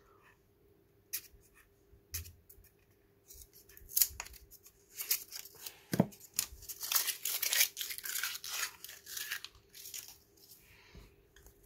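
A paper wrapper being torn and peeled off decks of playing cards, in short rustling tears, with the cards handled and one knock about six seconds in.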